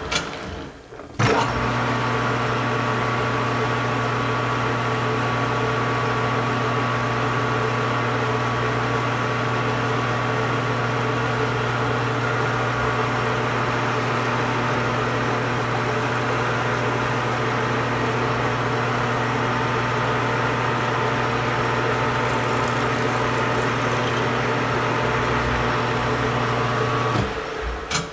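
Metal lathe running steadily with a hum and overtones while it turns a plastic slide wheel. The motor starts with a jump about a second in and runs down near the end.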